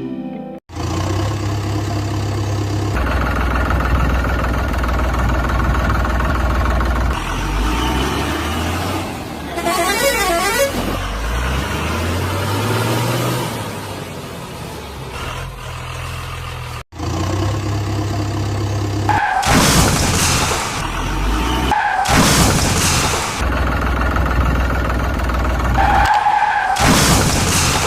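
Heavy vehicle engine sounds rumbling, then repeated truck horn honks in the second half.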